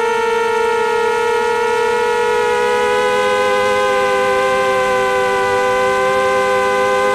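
Jumper Pro 218 quadcopter's motors and propellers giving a steady high whine. About two and a half seconds in, the single pitch splits into two, one rising and one falling, as the quad banks and its motors run at different speeds.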